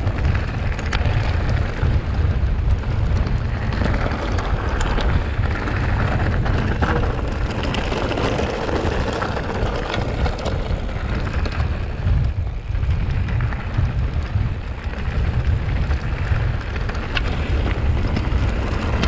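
Wind buffeting the camera microphone in a heavy low rumble, over the crunch of mountain-bike tyres rolling on a loose gravel track, with scattered small clicks and rattles from the bike.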